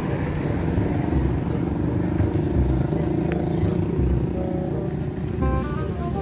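Road traffic passing, a steady low rumble with an engine drone. Background music comes in near the end.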